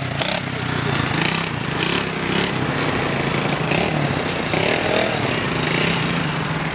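Small 125cc pit bike engine running steadily.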